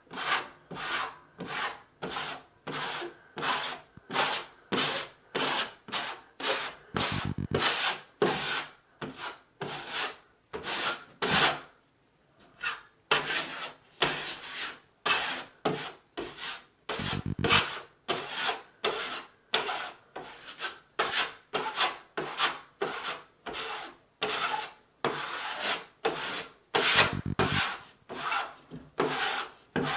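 A 6-inch drywall knife scraping down high spots on semi-hard setting joint compound, in short rasping strokes about two a second, with a brief pause about twelve seconds in.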